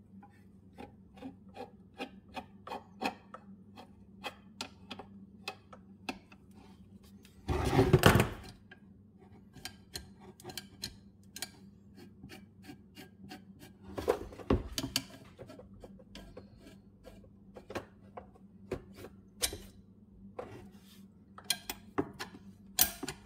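Metal clicking and rubbing from a Murray riding mower's deck height lift lever and rod being worked by hand, a few light clicks a second. There is a louder scrape about eight seconds in and another around fourteen seconds.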